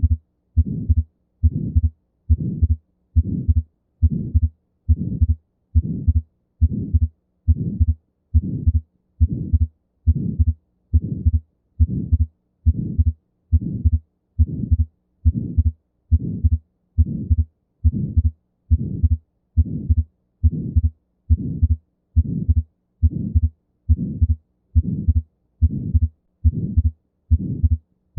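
Heart sounds of an atrial septal defect heard through a stethoscope: a regular beat a little over once a second, with an ejection systolic murmur and a fixed split of the second heart sound.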